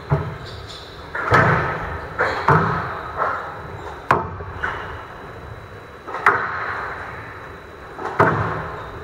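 Squash rally: the ball is struck by rackets and smacks off the walls and floor in an irregular run of sharp knocks, about one a second, each echoing briefly in the hall.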